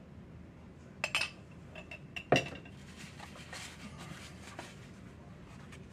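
A metal utensil clinking against a glass jam jar: a few light clinks about a second in, then one sharp clink a little past two seconds that rings briefly. Soft scraping follows as the jam is spread on a biscuit.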